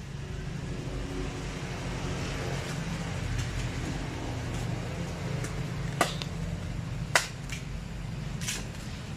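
Steady low rumble of a vehicle engine running, with two sharp clicks about six and seven seconds in.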